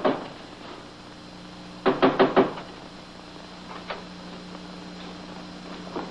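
Knuckles knocking on a door: about four quick raps about two seconds in, then a single fainter tap near four seconds, over a steady low soundtrack hum.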